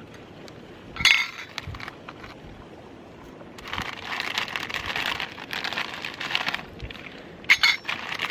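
Metal camp cookware clinks sharply about a second in and again twice near the end, with a few seconds of crinkly rustling from a small packet being handled in between.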